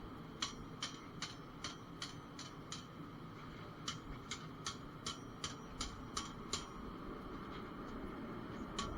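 Hammer striking a hot bushcraft knife blade on an anvil, evenly spaced blows about two and a half a second, in two runs with a pause of about a second between them. This is the blade's point being forged into a gentle downward curve.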